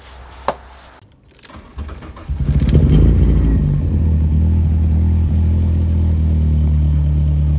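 A car engine starting about two seconds in, swelling to a brief rev and then settling into a steady idle.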